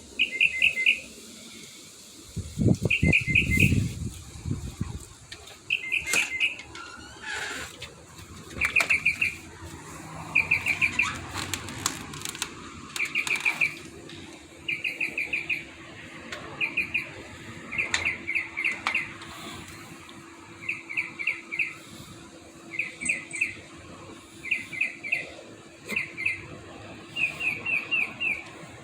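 A bird singing at night, repeating a short phrase of four or five quick high notes about every one and a half to two seconds. A low rumble, like wind or handling on the microphone, comes about two to five seconds in.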